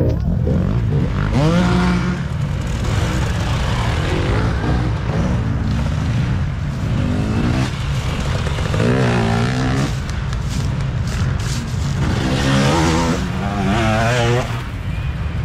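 Dirt bikes racing past one after another on a woods trail, their engines revving up and down as the riders work the throttle through the turns. The loudest passes come about a second and a half in, around nine seconds, and from about twelve to fourteen seconds.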